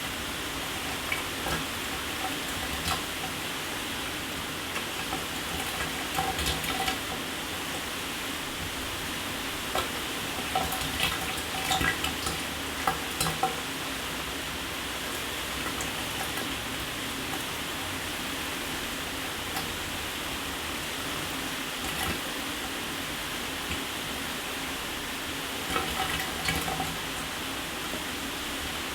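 Shower water spraying steadily, a constant hiss with irregular sharper taps and splashes that come in a few short clusters.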